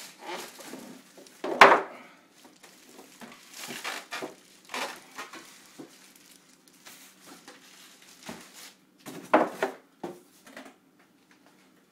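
Packing around a PC case being handled: styrofoam and plastic rubbing and rustling in irregular bursts, with two louder knocks, one about a second and a half in and one past the nine-second mark.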